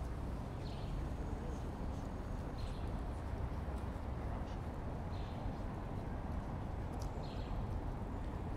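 Street ambience with medium city traffic: a steady low rumble of distant traffic, with a small bird giving short high chirps every couple of seconds.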